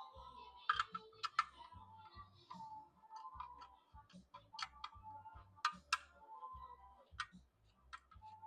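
Irregular sharp clicks and taps of small parts and tools being handled during bench disassembly, over faint background music.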